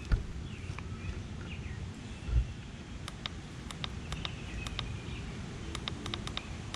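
Outdoor background with birds chirping faintly, a scatter of short sharp clicks through the second half, and a soft bump about two and a half seconds in.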